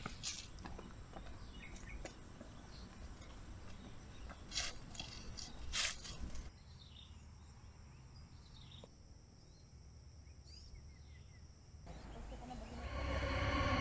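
Quiet forest ambience with a few rustles and snaps and faint high bird chirps. Near the end a low droning tone with several pitches fades in and grows steadily louder.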